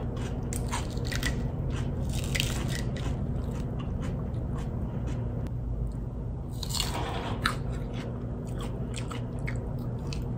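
Crisp crunching and chewing of fresh salad greens and vegetables close to the microphone, with many short crunches and a louder crunch about seven seconds in, over a steady low hum.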